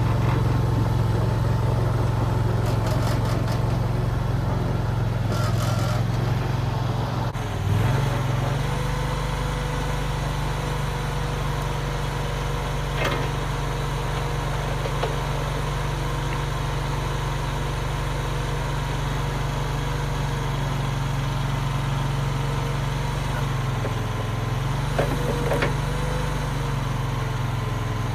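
Mini skid steer engine running steadily. Its pitch rises about eight seconds in as the revs come up, then dips briefly and climbs back near the end.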